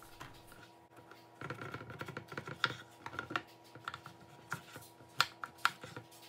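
Kitchen knife chopping vegetables on a wooden cutting board: a quick run of taps, then a few sharper single knocks of the blade striking the board.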